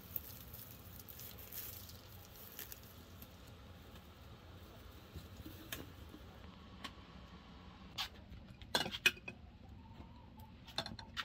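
Dried herb sprigs crumbled by hand into the metal infuser of a glass teapot: a soft crackling rustle with small pieces pattering down. Later come a few sharp clinks of glass and metal, the loudest about nine seconds in.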